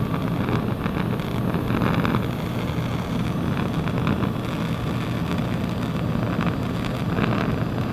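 Steady rushing noise of a handheld Bunsen burner's gas flame, heating a test tube.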